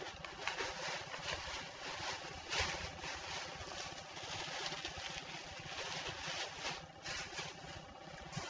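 Thin plastic shopping bags rustling and crinkling as someone rummages through them, in irregular bursts.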